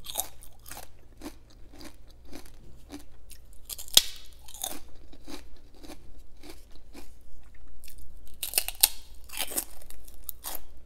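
Close-miked eating of deep-fried prawn crackers: crisp crunching bites and chewing, with a sharp bite about four seconds in and a burst of loud crunches near the end.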